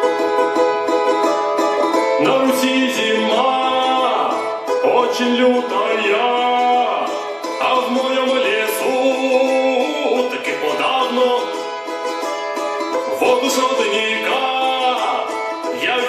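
Recorded music with plucked strings and sliding melodic lines, played at a steady loud level as a dance soundtrack.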